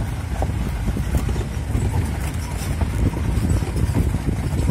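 Open safari jeep driving along a rough dirt track: a steady low engine and road rumble with scattered knocks and rattles from the vehicle body.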